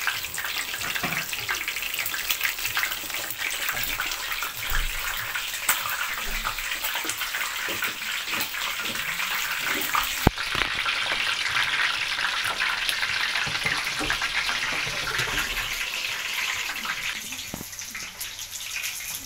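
Chicken pieces deep-frying in hot oil in a pan: a steady, dense sizzle full of fine crackles, with one sharp click about halfway through. The sizzle eases a little near the end.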